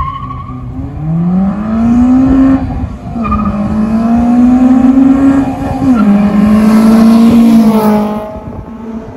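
Honda B20B two-litre four-cylinder on individual throttle bodies, revved hard in a Honda Ballade as it accelerates up to and past. The engine note climbs, drops at each of two upshifts about three and six seconds in, and is loudest as the car passes near the end, then fades.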